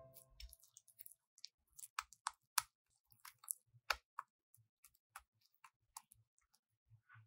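Silicone-coated balloon whisk mixing thick egg-and-flour batter in a glass bowl: faint, irregular clicks and wet smacks, about two or three a second.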